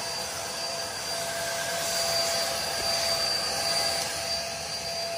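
Stick vacuum cleaner running steadily, its narrow nozzle sucking along a sliding-door floor track: a steady motor whine over the rush of air.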